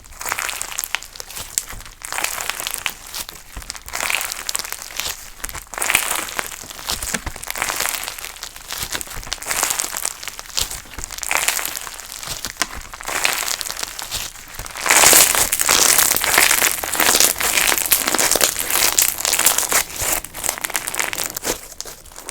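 Clear crunch slime being squeezed, folded and pressed by hand, giving dense crackling and popping in repeated surges. The crackling gets louder about two-thirds of the way through.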